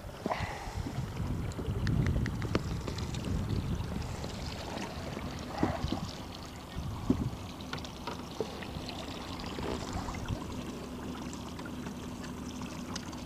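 Wind buffeting the microphone over a low boat rumble, with scattered sharp clicks and knocks from handling the fishing rod and gear. A faint steady hum comes in about halfway through.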